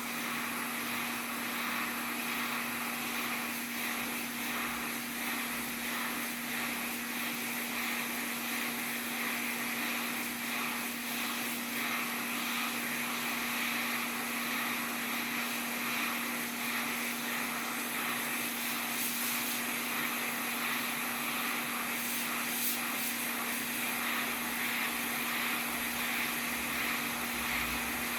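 Hot air rework station blowing steadily, with a constant hum from its fan, heating low-melt solder to desolder a console's port from the circuit board.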